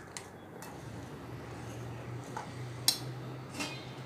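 Small wire whisk stirring wheat flour and egg in a ceramic plate, with a few light clinks of metal against the plate, the sharpest about three seconds in.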